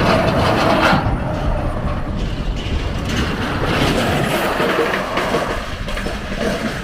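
A heavy truck hauling a wind-turbine blade passes close by, with a steady rumble of engine and road noise that is loudest in the first second and eases off a little towards the end.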